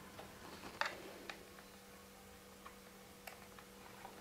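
A few faint, irregular clicks of a small screwdriver working a screw on the underside of a laptop, over a steady low hum.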